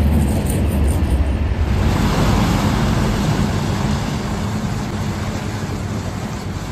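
Road traffic on a slushy highway: a snowplow truck's engine rumbling at first, then, about two seconds in, a steady hiss of tyres driving through wet slush that slowly fades.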